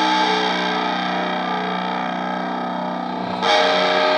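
Background music on distorted electric guitar: a held chord, then a new chord struck about three and a half seconds in.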